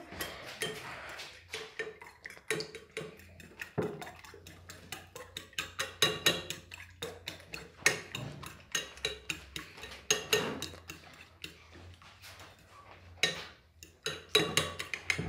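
A metal fork beating egg whites by hand in a ceramic bowl: rapid, uneven clinks of metal against the bowl, several a second, easing off for a moment a little past the middle.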